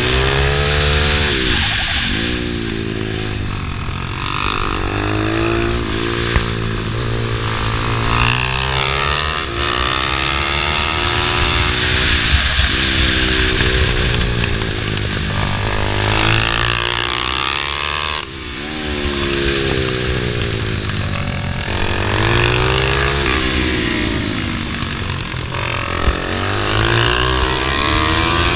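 Pit bike engine heard from onboard, its revs climbing and dropping again and again every couple of seconds as the rider opens and shuts the throttle through the corners, with wind rushing over the microphone.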